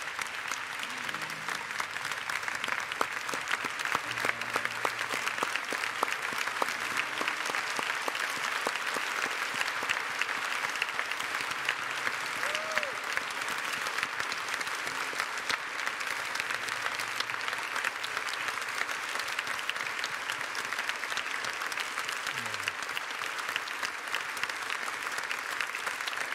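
A large church congregation applauding, a long unbroken ovation of many hands clapping at a steady level, with a voice calling out briefly once or twice.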